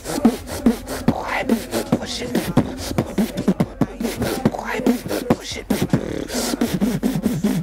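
A man beatboxing: a quick rhythmic run of mouth-made drum hits, about four a second, with short hummed tones mixed in.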